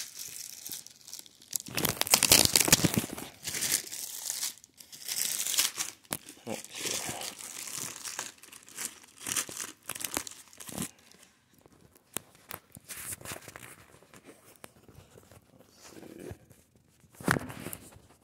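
Plastic shrink-wrap being torn and crinkled off a product box by hand, in irregular crackling bursts, loudest a couple of seconds in and again near the end.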